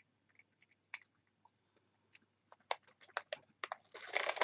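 A cat chewing crunchy filled cat treats: scattered small crunches at first, growing denser and louder over the last couple of seconds.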